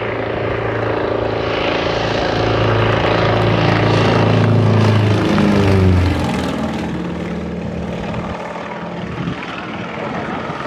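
Single-engine propeller aerobatic plane flying low overhead. The engine grows louder to a peak about six seconds in, its pitch drops as it passes, and it fades as the plane climbs away.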